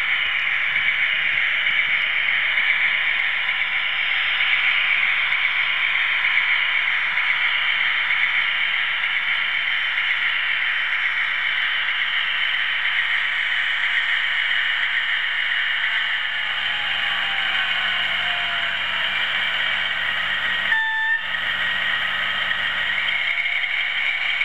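OO gauge model train running along the track with a steady, high-pitched whirring rolling noise. A single brief toot sounds near the end, typical of a DCC sound-fitted locomotive.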